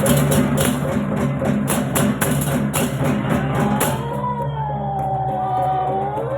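Balinese baleganjur gamelan playing for an ogoh-ogoh procession: fast clashing cymbals and drums over steady low gong tones. About four seconds in, the cymbal strokes stop and a long wavering high call carries on over the low tones.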